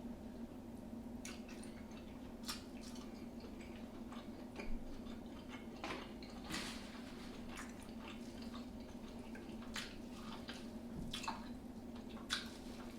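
Close-up eating sounds: chewing with scattered wet smacks and clicks, some louder than others, over a faint steady hum.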